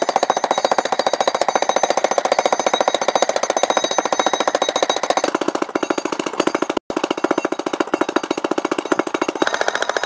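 Hilti electric demolition hammer (jackhammer) breaking up a concrete slab: a loud, fast, steady run of chisel blows, cutting out for a moment about seven seconds in.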